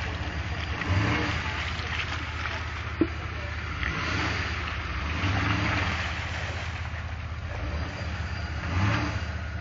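Off-road vehicle engine running at low revs, rising briefly a couple of times, with a sharp knock about three seconds in.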